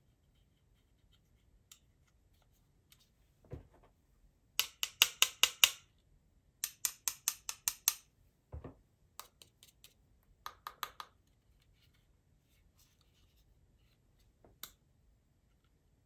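Close handling of a small aluminium LED light panel and its bits: four quick runs of sharp clicks, about five or six a second, with a few soft knocks between them.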